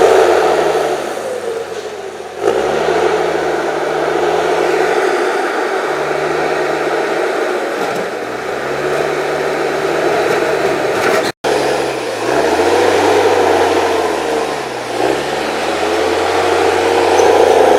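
The 6.7-litre engine of an HSM 904 S forestry machine running and revving up and down under work, its pitch rising and falling several times. The sound cuts out for an instant about eleven seconds in.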